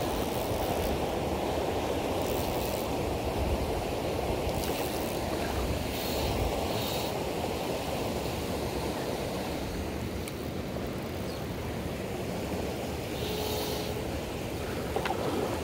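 Fast-flowing river water rushing steadily around a wading angler's legs, with wind rumbling on the microphone at times and a few faint ticks.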